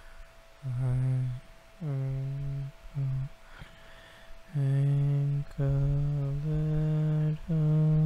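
A man humming a slow, low lullaby-like melody, in held notes of about a second with short breaks between them, starting about half a second in. A faint steady tone sits underneath.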